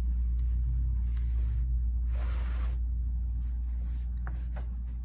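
Steady low hum, with a soft swish of embroidery thread being pulled through about two seconds in and a couple of faint ticks near the end.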